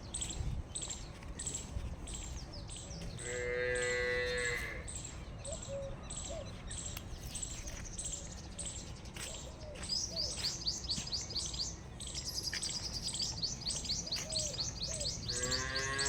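Dairy cattle mooing: one long moo about three seconds in and another starting near the end, over steady rapid chirping of small birds.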